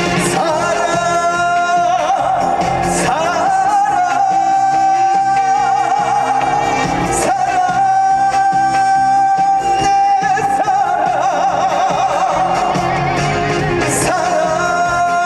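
Male singer performing a Korean trot song live with band accompaniment, holding one long high note with vibrato for several seconds before it breaks into a wavering melody.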